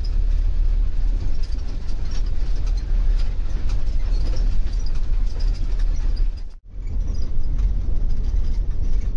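Cabin noise inside a Force Traveller minibus on a rough unpaved road: a heavy low rumble with constant rattling and knocking from the body. The sound drops out for an instant about two-thirds of the way through, then carries on the same.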